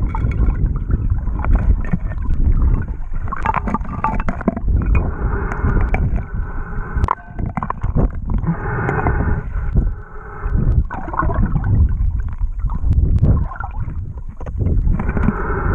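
Water and gurgling bubbles heard through a submerged camera: a heavy, uneven low rumble with gurgles that swell and fade.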